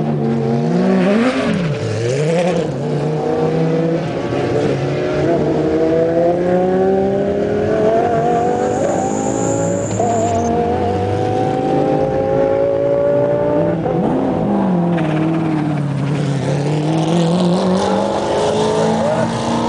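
GT race car engines running in the pit lane, blipping the throttle and pulling away one after another. Their pitch dips and climbs sharply several times, and rises slowly for several seconds through the middle.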